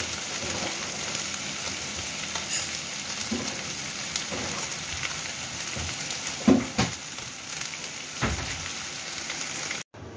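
Whole fish and ginger pan-frying in oil in a nonstick pan: a steady sizzle with occasional louder pops and crackles, cutting off abruptly near the end.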